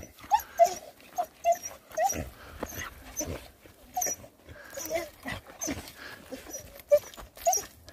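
Black-and-tan Jindo dog giving short whining cries over and over, with scattered knocks between them: excited whining at the sight of its owner.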